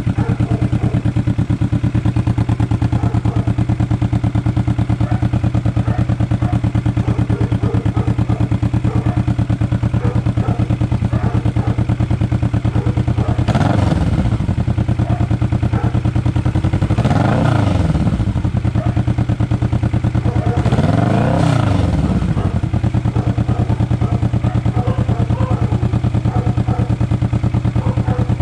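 Kawasaki Vulcan S 650's parallel-twin engine idling steadily through an Orion full-system aftermarket exhaust, revved three times, each rev a brief rise and fall in pitch.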